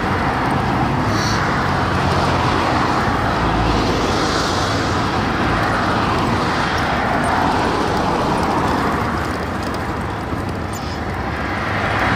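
Steady road traffic on a busy highway, heard close from the roadside shoulder: cars pass one after another and the tyre and engine noise swells and fades. The noise eases a little about ten seconds in, then rises again.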